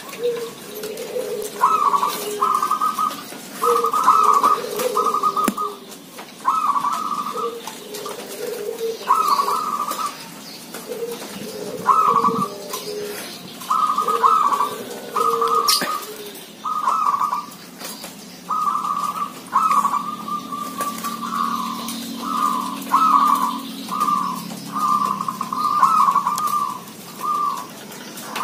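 Caged zebra doves cooing, several birds calling back and forth in short repeated phrases that overlap one another.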